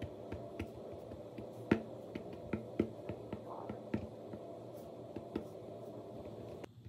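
Yellow paint marker tapped point-first onto a painted light switch cover, dotting in stars: light, irregular ticks, the loudest a little under two seconds in, over a steady low hum that drops away near the end.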